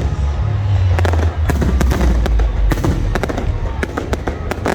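Aerial fireworks going off: a dense run of sharp cracks and pops over deep, rumbling booms that are heaviest in the first half and then ease off.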